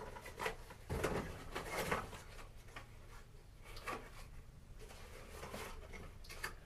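Scattered light clicks, knocks and rustling of small hardware being handled, as boxes of staples are sorted through to find the right size.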